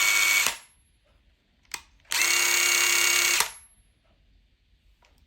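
Cordless impact driver running free with no load in two trigger pulls, each about a second and a half, with a steady whine that cuts off sharply. A light click comes between the pulls.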